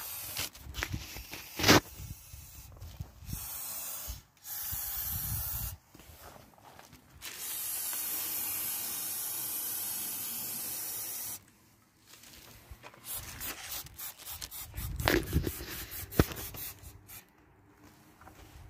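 Aerosol lubricant spray can hissing in several bursts, the longest a steady spray of about four seconds. A sharp knock about two seconds in is the loudest sound, with a few more knocks near the end.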